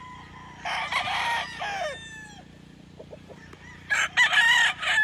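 Gamecock roosters crowing: one long crow about a second in, then another near the end.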